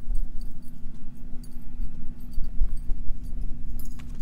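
Wind buffeting the microphone in uneven gusts over a steady low hum from a running machine, with faint scattered ticks.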